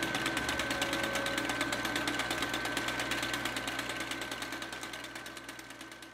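Film projector running with a rapid, even clatter and a steady high whine, fading out gradually over the last couple of seconds.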